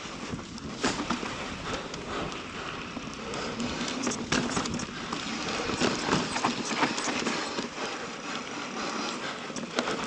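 Mountain bike riding down a rocky dirt trail: tyres crunching and rolling over dirt and rock, with the bike rattling and knocking sharply over bumps and ledges.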